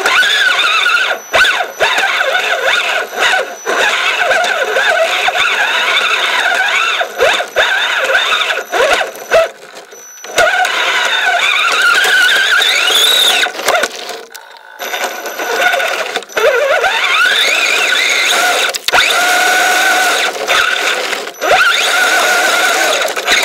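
Kyosho Blizzard RC snowcat's electric motor and chain-driven tracks whining as it is driven. The pitch rises and falls with the throttle, and the whine cuts out briefly a few times.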